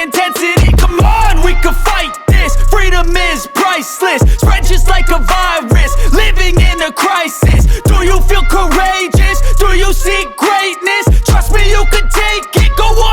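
Hip hop music with heavy bass beats that drop out every second or two, and rapped or sung vocals over it.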